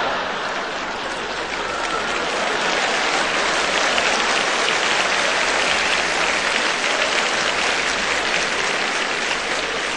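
Live audience applauding, a long, steady round of clapping in reaction to a joke.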